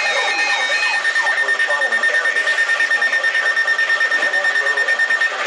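Emergency alert tone received over the radio: a steady high-pitched alarm tone that pulses rapidly several times a second, over radio hiss and crackle, cutting off just before the end.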